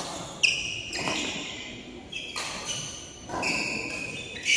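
Badminton rackets striking shuttlecocks, about five sharp hits at irregular intervals of roughly a second, each ringing briefly in the echoing hall.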